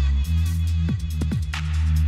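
Background electronic music with a heavy, sustained bass line and quick downward pitch swoops, plus a short noisy hit about one and a half seconds in.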